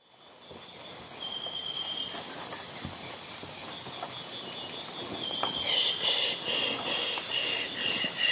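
A chorus of insects trilling steadily, fading in over the first second. A few shorter, pulsing chirps join in about two-thirds of the way through.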